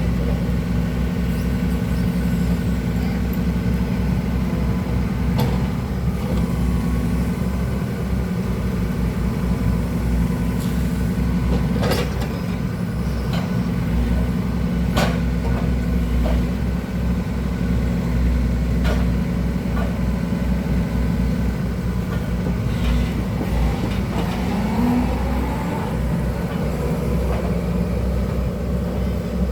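Diesel engine of an excavator running steadily with a low drone, with a few sharp metallic clanks from the machine about a fifth, two-fifths, half and two-thirds of the way through.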